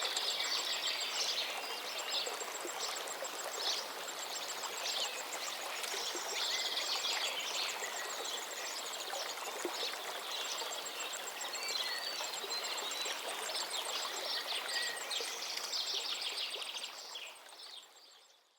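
Calm river or stream babbling steadily, with several songbirds singing and chirping over it in short, repeated phrases and a rapid high ticking trill. It all fades out near the end.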